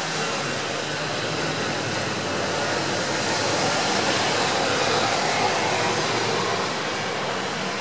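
Steady hiss of light rain falling on leaves and roofs, swelling slightly in the middle.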